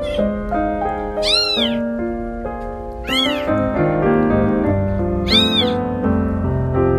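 Newborn kittens mewing for their mother: three high-pitched mews that rise and fall, about two seconds apart, over background music.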